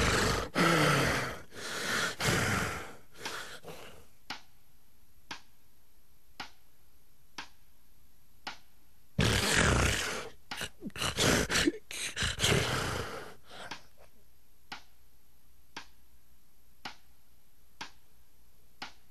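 A sleeper's loud snoring stops after about three seconds, leaving several seconds with no breathing heard, only faint clicks about once a second. About nine seconds in comes a burst of choppy gasping snorts, then quiet again. This snore, pause and gasp pattern is typical of obstructive sleep apnoea.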